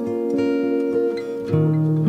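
Background music: acoustic guitar being strummed and plucked, with a chord change about one and a half seconds in.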